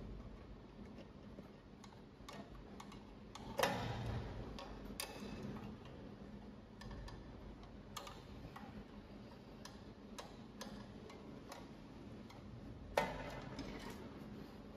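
Screwdriver clicking and scraping against small screws in a sheet-metal printer housing, with scattered light ticks and two louder metallic knocks that ring briefly, about four seconds in and near the end.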